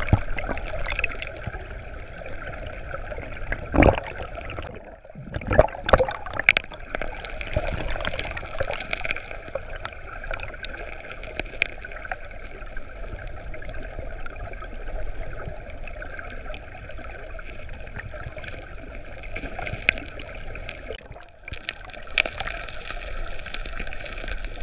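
River current heard underwater: a steady rushing, gurgling wash, with a few sharp clicks and knocks about four to seven seconds in as gravel and stones on the riverbed are moved by hand.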